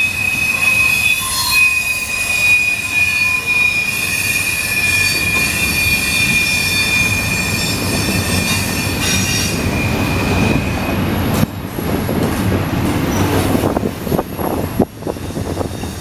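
Double-stack intermodal container train rolling past, its steel wheels giving a steady high squeal over the rumble of the cars. The squeal fades out about two-thirds of the way through, leaving a louder rumble and clatter with a few sharp knocks near the end.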